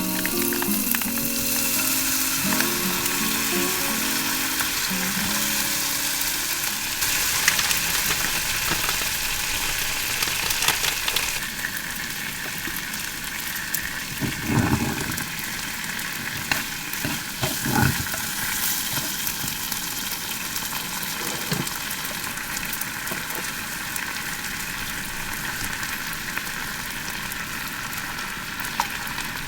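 Food frying in a hot pan, a steady sizzle, with a few short knocks of a utensil against the pan a little past the middle.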